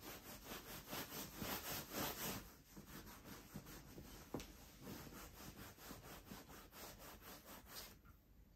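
Bare hand rubbing back and forth over the sheepskin leather of a Schott Type B3 flight jacket: a rapid run of soft rubbing strokes, strongest in the first couple of seconds and fading toward the end.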